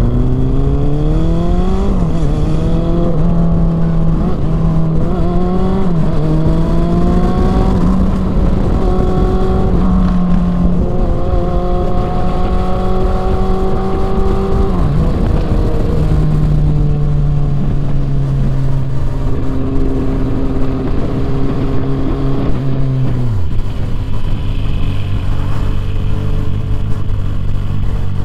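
Honda CB400 Super Four's inline-four engine and exhaust under way. The revs climb in steps with short dips through the first several seconds, then hold steady. The pitch falls about halfway through and falls again near the end, settling at lower revs.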